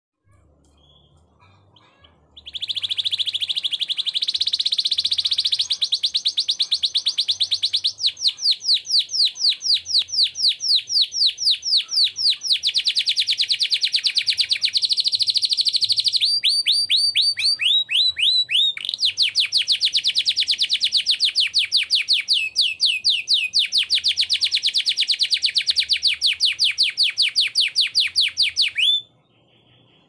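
Canary singing one long unbroken song of rapid trills and rolls, starting about two seconds in and switching between phrases of different speeds every few seconds, then stopping abruptly near the end.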